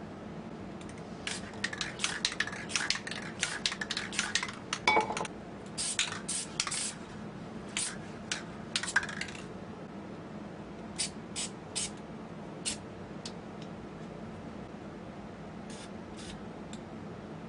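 Aerosol spray paint can hissing in many short bursts, packed close together for the first half, then a few spaced-out sprays.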